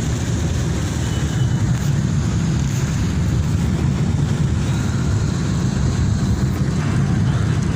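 Steady low rumble of a vehicle travelling on the road, with an even hiss of heavy rain and wet road over it.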